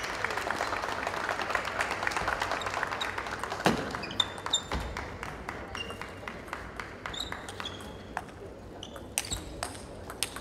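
Table tennis play: the celluloid-type ball clicking off the rackets and the table in an irregular run of sharp knocks, with short rubber-sole squeaks on the hall floor. A denser wash of crowd noise fills the first few seconds, with a louder knock about four seconds in.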